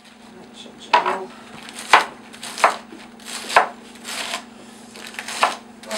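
Kitchen knife chopping lettuce on a wooden cutting board: about six unhurried crisp chops, roughly one a second, over a steady low hum.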